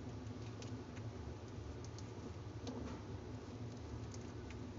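Newborn kittens shuffling against their nursing mother cat on the cloth bedding of a cardboard box: a few faint, scattered soft ticks and rustles over a steady low room hum.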